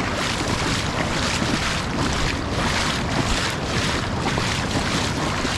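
Wind buffeting the microphone over water washing across a shallow reef flat, a steady rushing noise that rises and falls irregularly.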